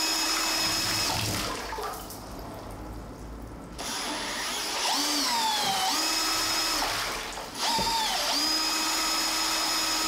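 Power drill spinning a 3D-printed closed-impeller centrifugal water pump on its first wet test: a steady motor whine that stops for about two seconds, starts again, sags and recovers in pitch twice as the speed varies, cuts out briefly once more, then runs steady.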